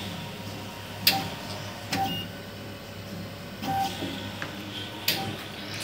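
Bobase BK-400 Crystal chemistry analyzer running, its internal mechanisms clicking sharply three times over a steady low hum.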